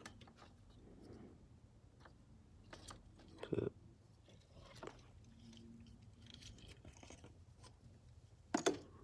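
Plastic wiring-harness connectors and loose wires being handled: scattered faint clicks and rustles, with two louder clacks, about three and a half seconds in and near the end.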